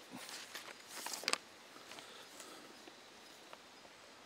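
Sheets of paper rustling as they are picked up and handled, with a sharp crackle a little over a second in.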